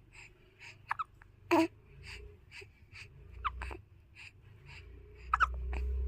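Repeated hiccups: a few sharp, sudden hics, the loudest about one and a half seconds in and again near the end, among fainter short sounds about three a second. A low rumble comes in near the end.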